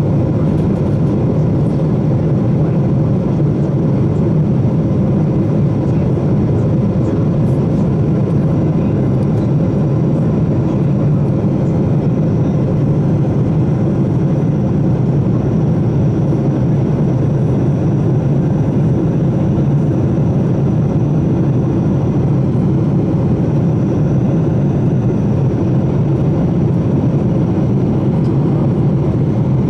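Jet airliner cabin noise in flight: a steady low rush of engine and airflow heard from a window seat, with a faint high whine coming in about halfway through.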